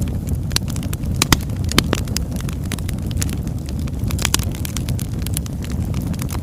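Birch wood fire burning: a steady low rumble of flame with frequent sharp crackles and pops, the loudest a little over a second in.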